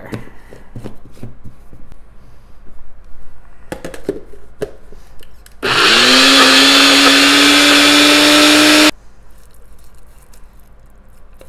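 Nutribullet personal blender running for about three seconds on a thick basil pesto mixture: the motor spins up with a quick rising whine, holds steady, then cuts off abruptly. Before it, clicks of the plastic cup being twisted and seated on the motor base.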